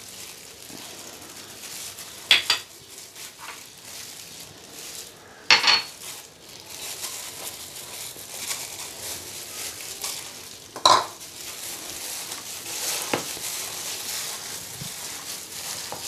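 Kitchen handling sounds as ingredients go into a plastic mixing bowl: about four sharp taps and knocks of containers and utensils against the bowl, with soft rustling of the food in between.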